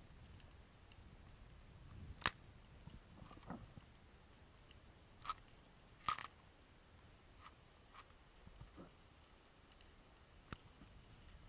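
Faint underwater ambience: a low hiss broken by about half a dozen irregular sharp clicks and ticks. The loudest click comes about two seconds in, and a double click about six seconds in.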